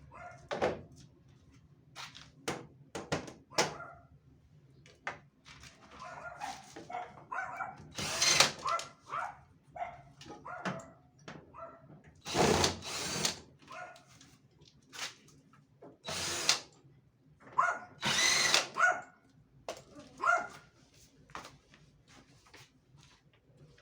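Dog barking repeatedly in short, irregular barks, with a few louder bursts of noise about a third, half and three quarters of the way through.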